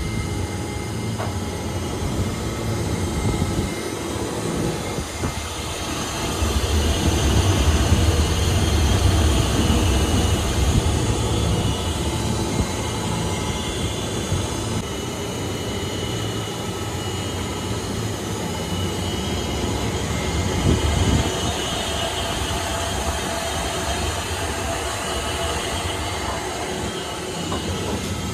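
Hollymatic 180 mixer grinder running, a steady mechanical rumble and whir from its motor and drive, louder for a few seconds about six seconds in.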